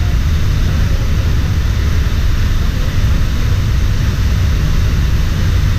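Tall jungle waterfall pouring into its plunge pool: a steady, loud, deep rush of falling water.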